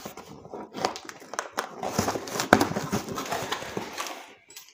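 A cardboard shipping box being cut open by hand: the packing tape is slit and the flaps pulled open, giving irregular scraping, tearing and cardboard rustling with small knocks, the sharpest about two and a half seconds in.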